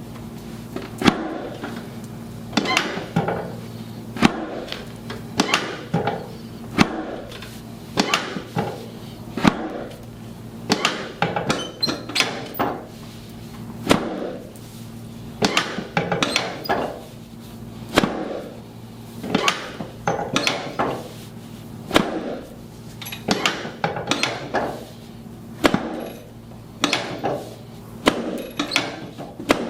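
A long series of sharp knocks or thwacks, irregularly spaced at roughly one or two a second, over a faint steady low hum.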